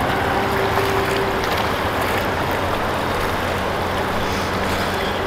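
Steady rush of stream water flowing around rocks, with no change in level.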